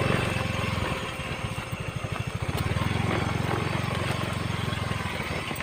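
An engine running with a rapid, even low putter.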